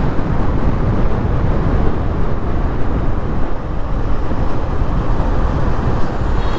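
A 2010 TVS Apache RTR 180's single-cylinder engine and stock exhaust running as the motorcycle rides along, with heavy wind buffeting the microphone.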